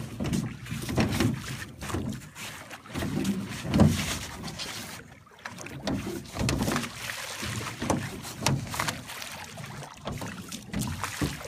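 A child rowing a small rowboat: oars splashing in the water and knocking against the boat in uneven strokes.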